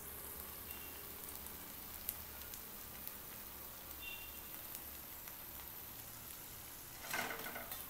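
Hot oil sizzling steadily around homemade Kurkure dough sticks deep-frying in a pan, with scattered small crackles, at the crisp, fully fried stage. A brief louder noise comes near the end.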